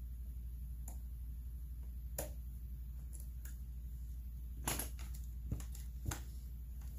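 Small hand tools, a screwdriver and needle-nose pliers, clicking and tapping against the parts of a Homelite 27AV chainsaw: about half a dozen short, sharp clicks, the loudest a little under five seconds in, over a steady low hum.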